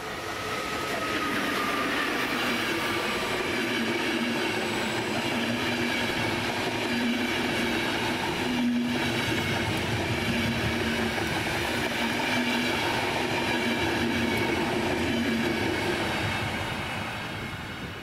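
An ÖBB class 1116 "Taurus" electric locomotive and its EuroCity passenger coaches pass close by, arriving at the station. A falling whine comes as the train draws up near the start, then the steady rolling of the coaches' wheels on the rails, with a single knock about nine seconds in. The sound fades as the train moves away near the end.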